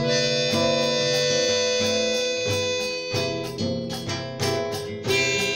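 Acoustic guitar strummed in a steady rhythm, with a harmonica in a neck rack playing long held notes over it.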